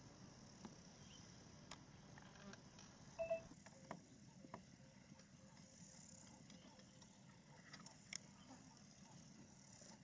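Faint bush ambience: insects drone at a high pitch, swelling about halfway through. Scattered small clicks and one short chirp come about three seconds in.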